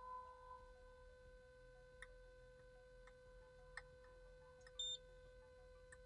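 Very faint steady hum from a WT3-201M wire terminal pull tester during a pull test on a crimped terminal, with a few soft clicks and one short high beep about five seconds in as the tester flags the result.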